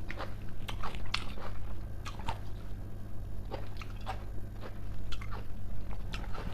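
A person chewing a mouthful of fresh salsa, with short crunches and mouth clicks at irregular intervals.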